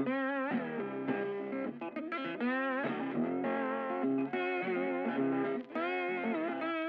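Background music led by a guitar playing a melody with bent, wavering notes.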